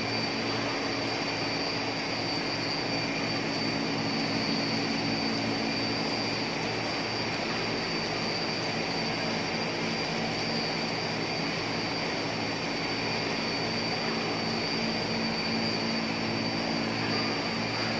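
Wire extrusion line running: a steady machine drone and hum with a constant high-pitched whine over it.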